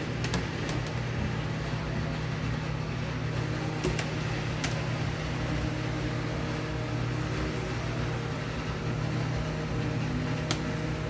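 Steady low mechanical room hum, with about five light, sharp clicks spread through it as wood screws are set into their holes by hand and turned a little.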